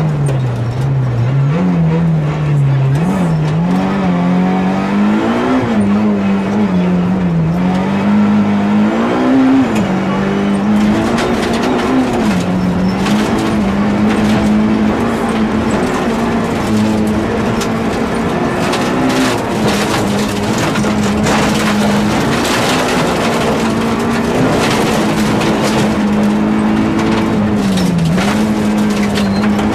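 Nissan Almera GTi's SR20DE 2.0-litre four-cylinder engine driven hard at high revs. Its pitch drops and climbs again several times in the first ten seconds as the driver lifts and changes gear, then holds high and steady. Gravel clatters against the car from about ten seconds in.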